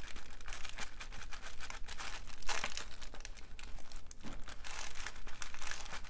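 Wet-erase marker scratching across a clear plastic dry-erase board in short irregular strokes while handwriting, with the tissue paper under the board crinkling.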